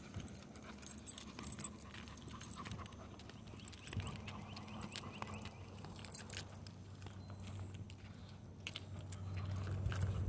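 Light metallic jingling and clinking of small metal pieces, in short irregular bursts, with handling noise while walking. A low hum grows louder toward the end.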